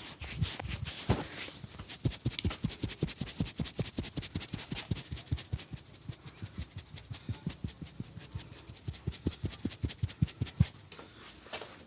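Hands striking the body in a rapid percussive massage, a fast steady patter of about six slaps a second that stops suddenly near the end.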